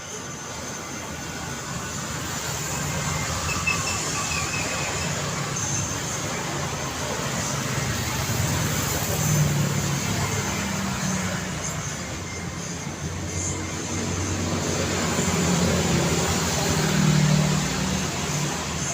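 Road traffic: a continuous wash of tyre and engine noise from passing cars, with a low engine hum. It swells as vehicles go by, loudest about halfway through and again near the end.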